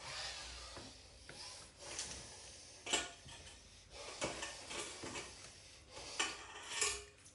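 Wooden spatula stirring a diced potato filling in a glass bowl: soft scraping and rustling of the food, with several sharper knocks of the wood against the glass.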